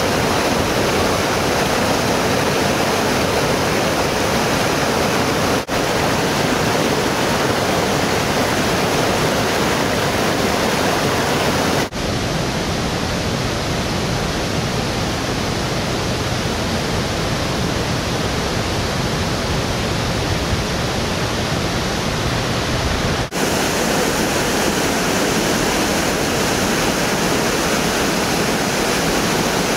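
River water rushing over low weirs and through rapids, a steady, even rush. It breaks briefly at three points, and the middle stretch is a little softer and less hissy.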